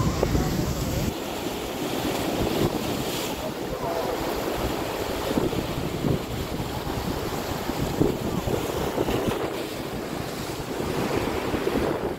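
Wind buffeting the microphone over choppy sea water, with waves splashing; a heavy gust rumbles in the first second and then eases.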